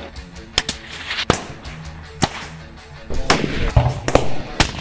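Several rifle shots, sharp cracks at uneven intervals, over background music with a low bass line.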